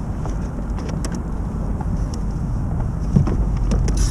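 Wind buffeting the microphone: a steady low rumble that grows slightly louder, with a few faint clicks.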